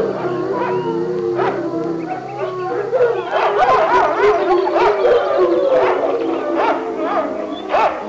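A group of huskies howling together, many wavering calls overlapping, with short sharp yips among them; the chorus grows fuller about three seconds in.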